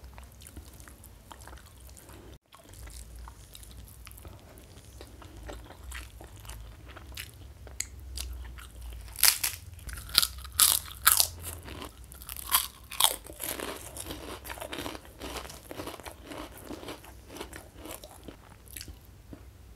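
Close-miked eating: soft chewing, then a run of loud, sharp crunches from about nine to thirteen seconds in as a crisp kerupuk cracker is bitten and chewed, then softer chewing again.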